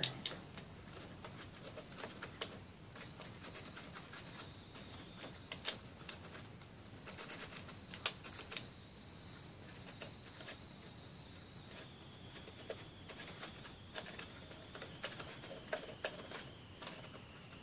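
A marker tip tapping and scratching inside a small wax melt burner as its inside is coloured black. There are scattered light clicks and taps, with a faint steady high whine slowly dropping in pitch.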